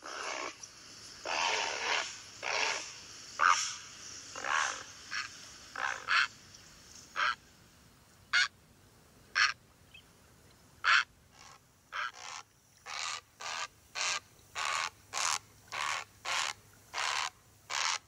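Great blue heron calling: a series of harsh, hoarse squawks, irregular at first, then from about twelve seconds in a steady run of shorter calls about two a second.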